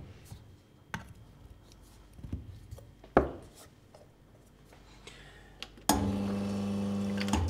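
Knocks and clicks of a portafilter and tamper being handled, the loudest about three seconds in, then the Bezzera Duo espresso machine's pump runs with a steady hum for about a second and a half and cuts off.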